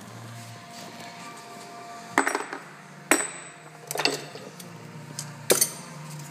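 Four sharp metal knocks about a second apart, each ringing briefly: steel suspension bolts and parts clanking as the bolts are worked out of a Ford Escape's front strut.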